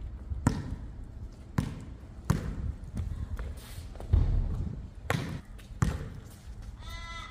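Basketball bouncing on an outdoor hard court: about six separate bounces at an uneven pace, with a heavier thud about four seconds in as a shot comes down at the hoop.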